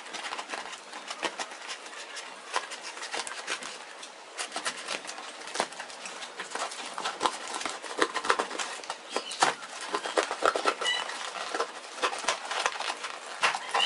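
Crinkling and rustling of parcel packaging being handled and opened, an irregular run of small crackles and clicks.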